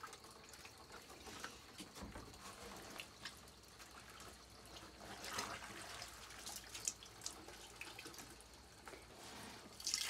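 Cloth being washed and wrung out by hand in a plastic bucket of water: faint splashing and dripping, with a louder splash about five seconds in.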